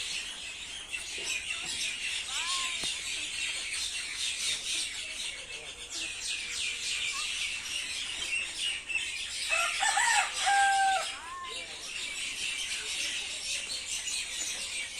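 Many small birds chirping continuously in a dense chorus, with a rooster crowing once about ten seconds in, the loudest sound.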